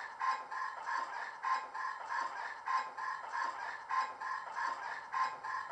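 ESU HiFi DCC sound decoder in a Bachmann Class 40 model locomotive playing a repeated two-tone chirp with clicks through its pair of 27 mm speakers, about three a second. This is the locomotive's start-up sequence before the diesel engine sound fires.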